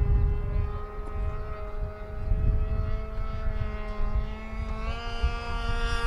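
Gasoline engine of the Ponkotsu-go Taro radio-controlled model airplane droning steadily in flight, its pitch rising slightly about five seconds in.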